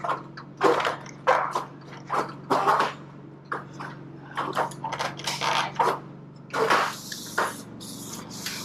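Aluminum trim stock being worked in a sheet-metal brake: a run of short scraping, rattling noises, one or two a second, then a longer scrape about two-thirds of the way through.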